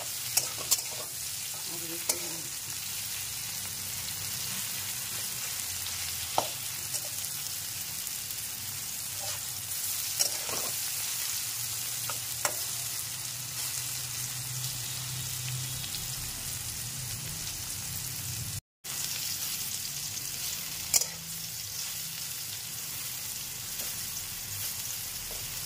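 Sliced potatoes and pointed gourd sizzling in oil in a steel kadai, with a steady hiss. A metal spatula stirs them, scraping and clicking against the pan every few seconds.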